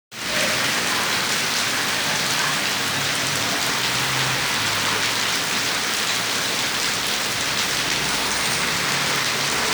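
Heavy rain falling steadily, a dense even hiss of rain on the ground and surfaces.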